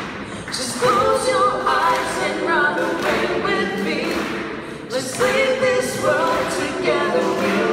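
Several voices singing a country song together in harmony, a cappella or nearly so, with sung phrases that rise and fall and break every second or so.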